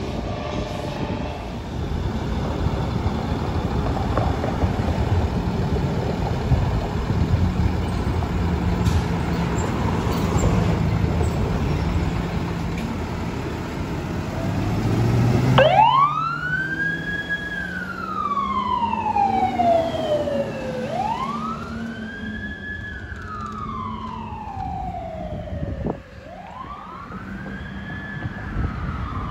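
Traffic and truck engine noise, then a fire department rescue ambulance's siren sounding a wail, three times, each sweep rising quickly and falling slowly over about five seconds. Under the siren its engine climbs in pitch as it pulls away.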